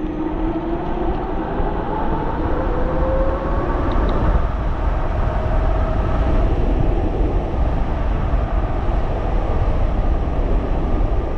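Riding noise from a 3,000-watt electric bike: steady wind rumble on the microphone, with a motor whine that rises in pitch over the first several seconds as the bike picks up speed.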